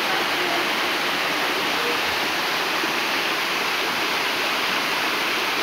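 Steady rush of water from a waterfall and its shallow, rocky mountain stream, flowing over stones.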